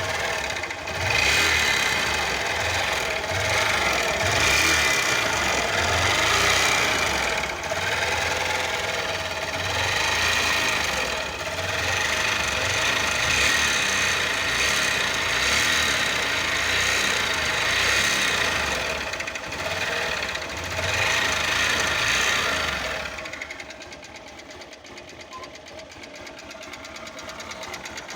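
Honda CG 125 Fan's air-cooled single-cylinder four-stroke engine running with a knock in the engine, which the owner suspects is the connecting rod or the piston. It runs loud with rising and falling level, then drops much quieter near the end.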